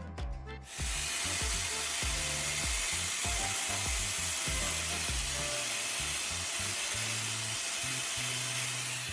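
Angle grinder cutting and shaping a rod of twisted copper wire: a steady grinding hiss that starts about a second in and cuts off suddenly at the end, with background music underneath.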